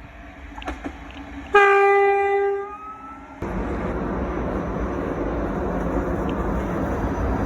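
Class 334 electric train's horn sounding a single high note for about a second, then fading. About three seconds in it cuts suddenly to the steady loud rush and rumble of a train running by.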